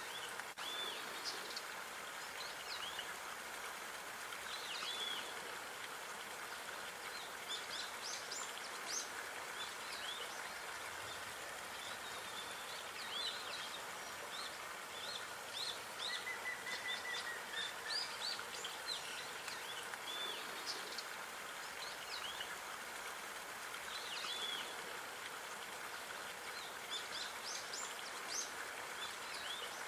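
Small songbirds chirping and singing, many short high calls one after another, over a steady background hiss; a short trill comes about halfway through.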